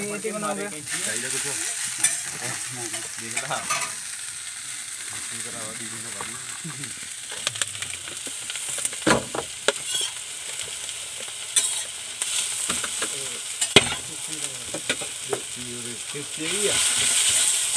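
Chowmein noodles and shredded cabbage sizzling as they are stir-fried on a large iron wok, with a metal spatula clacking against the pan several times around the middle. The sizzle grows louder near the end as sauce goes onto the noodles.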